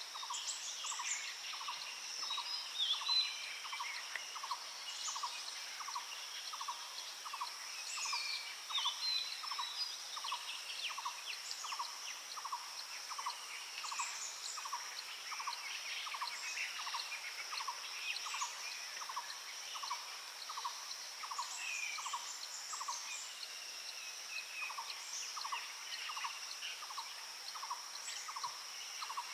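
Several wild birds calling, with varied short calls and phrases, over a steady high-pitched insect drone. Through it one bird repeats a single low note about one and a half times a second, pausing briefly about two-thirds of the way in.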